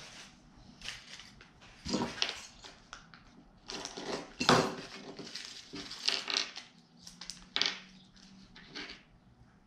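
A small plastic bag of bike hardware being cut and opened, its plastic crinkling, with small metal parts clinking; one sharper click about four and a half seconds in is the loudest.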